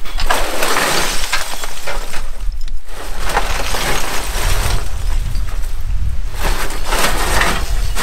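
Broken concrete block rubble sliding and clattering out of a tipped wheelbarrow onto a rubble pile, in three long pours.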